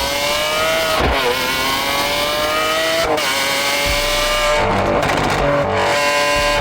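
Lamborghini Aventador SVJ's naturally aspirated V12 accelerating hard, its pitch climbing, with sharp gear upshifts about a second in and again about three seconds in. Near the end it holds a steadier note.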